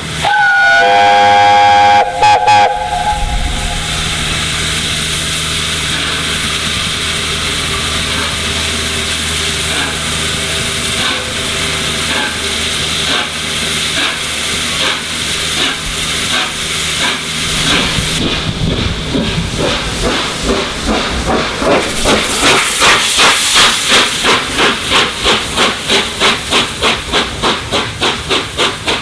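Steam whistle of A1 Pacific 60163 Tornado: one long blast of about two seconds, then a short second toot. Steam hissing steadily follows. About two-thirds of the way in, the locomotive's three-cylinder exhaust starts beating rhythmically and grows louder as it works the train.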